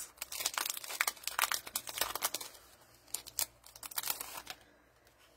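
Plastic craft-supply packaging crinkling as it is handled, a quick run of crackles and rustles that thins out after about three seconds and stops near the end.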